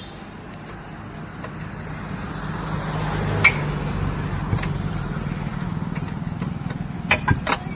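A vehicle engine running steadily, its hum growing louder from about two seconds in, with a single sharp knock midway and a few quick sharp knocks near the end.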